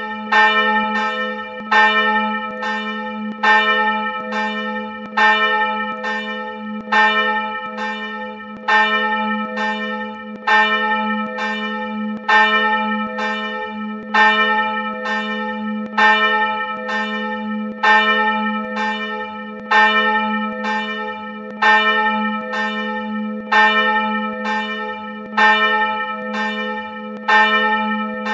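A single swinging church bell rung on its own, its clapper striking about once every 0.9 s. The strikes alternate louder and softer over a steady low hum tone from the bell.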